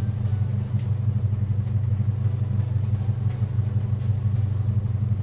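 Toyota Kijang Super's engine idling steadily, an even low pulsing hum.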